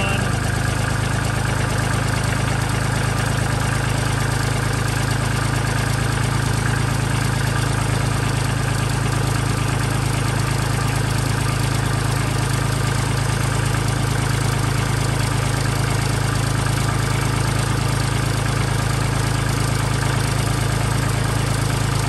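Kubota tractor's diesel engine idling steadily, with no change in speed.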